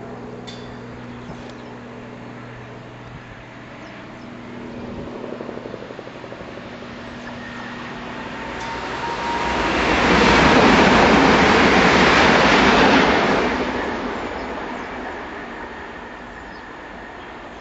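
Electric multiple-unit passenger train passing at speed: a rushing sound of wheels on rail and air that builds over a couple of seconds, stays loud for about three seconds, then fades away.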